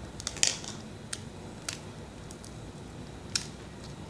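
A small plastic slime tub being handled and opened: a few scattered sharp clicks and crackles from the plastic lid and container, with fingers going into the clear blue slime.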